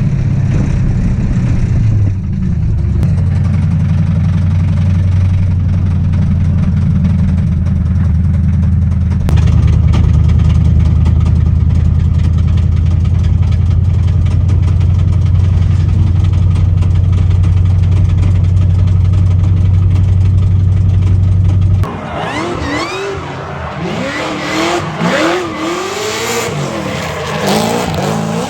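Car engine running loud and steady under load, its note holding at one pitch with a small shift about nine seconds in. Near the end the sound changes abruptly to rising and falling pitches of revving and tire squeal, typical of drifting.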